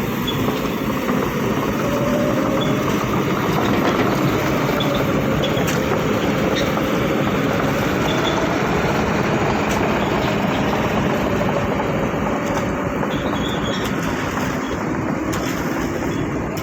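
Excavator's diesel engine running steadily, with a faint wavering whine and a few faint clicks.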